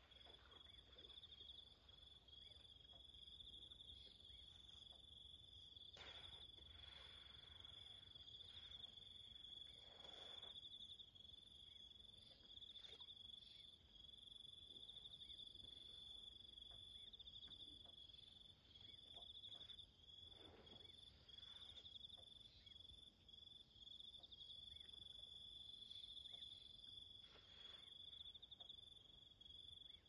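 Faint, steady high-pitched insect trilling that carries on without a break, with a few faint brief rustles in between.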